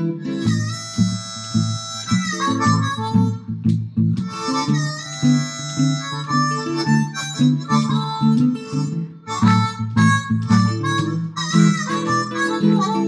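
Blues harmonica solo over guitar accompaniment: long held harmonica notes, some bent in pitch, alternating with shorter phrases, while the guitar keeps the rhythm underneath.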